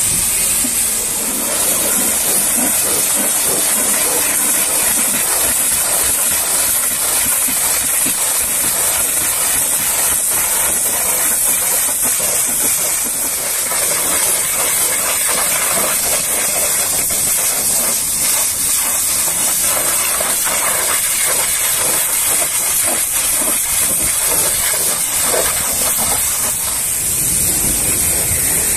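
High-pressure washer wand spraying a jet of water onto a truck's cab and bumper: a loud, steady hiss of spray with water spattering off the metal.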